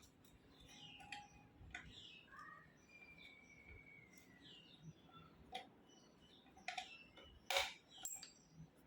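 Faint chirping of small birds, with scattered sharp clicks and knocks; the loudest knock comes about seven and a half seconds in.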